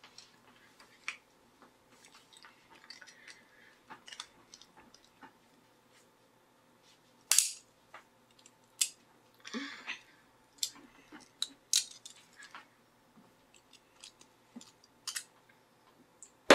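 3D-printed plastic support material being snapped and pried off a small printed figure with pliers and a blade tool: irregular sharp clicks and snaps, a few much louder than the rest from about halfway through.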